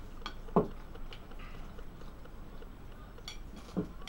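Salad being stirred in a glass bowl with a fork: scattered knocks and clinks of the utensil and bowl. The loudest knock comes about half a second in, a ringing clink a little after three seconds, and another knock near the end.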